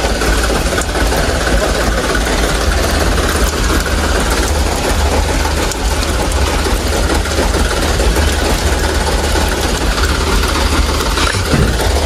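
A truck's engine running steadily at low revs close by, a continuous low rumble with no change in pace.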